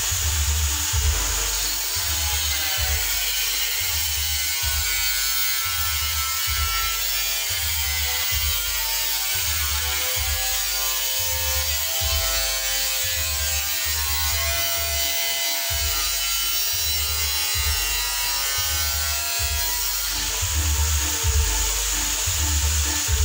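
Background music with a steady bass beat and a gliding synth-like melody over a constant hiss.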